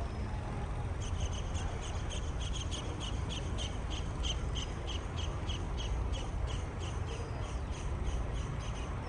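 A rapid, even run of short high chirps, about four a second, starting about a second in and stopping near the end, over a steady low rumble.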